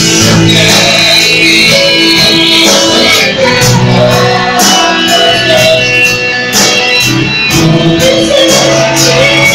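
Live church worship band playing loud: women singing into microphones over electric guitar and drums with a steady beat.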